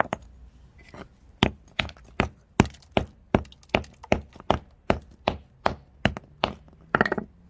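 Hammer blows chipping the corrosion crust off a corroded wartime fuse on a stone paving slab: a steady run of sharp knocks, about two to three a second, ending in a quick clatter of several knocks.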